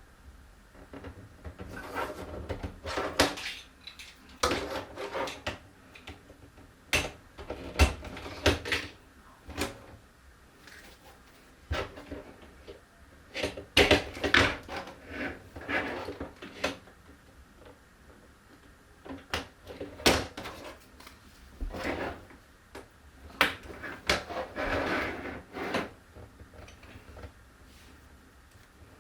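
Plastic marble-run pieces clicking and clattering in irregular bursts, with short pauses between them.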